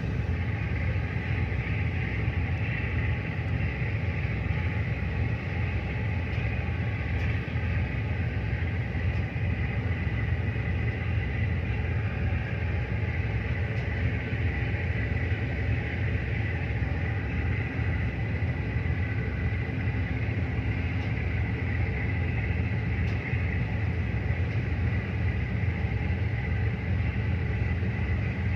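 Tugboat's diesel engine running steadily: an even low rumble with a faint steady whine above it.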